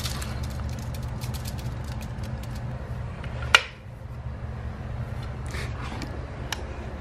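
Household paint handling: small wet clicks and ticks as paint is poured into a foil-lined roller tray and the paint can is handled, with one sharp knock about three and a half seconds in, over a steady low hum.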